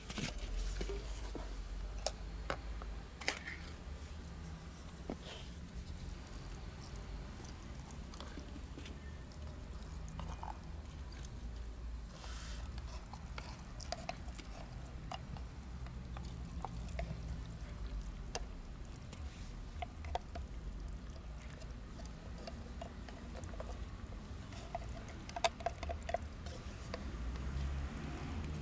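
Wet canned cat food being scooped out of a tin can with a wooden spoon and dropped onto foam trays: soft squelches, scrapes and scattered small clicks over a low rumble.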